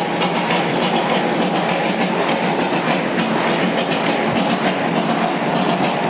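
Large stadium crowd cheering: a steady, dense roar of many voices.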